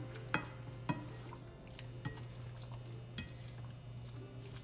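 Diced chicken and bell peppers sizzling in a frying pan as a spatula stirs them, with a few light knocks of the spatula against the pan. A steady low hum runs underneath.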